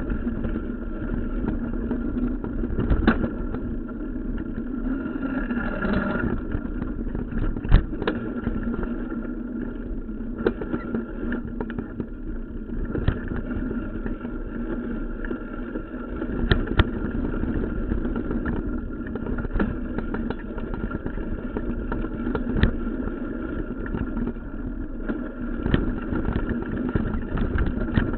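Mountain bike ridden along a dirt trail: a steady rumble of tyre and wind noise with frequent sharp knocks and rattles as the bike goes over bumps.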